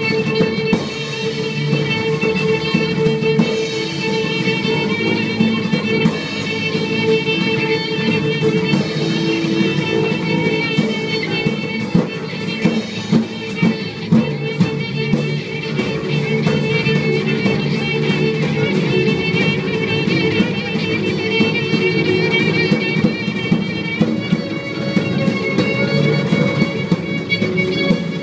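Free-improvised live music from a quartet of electric guitar, viola, double bass and drums: a dense, unbroken texture of held string tones with frequent short, sharp percussive hits scattered through it.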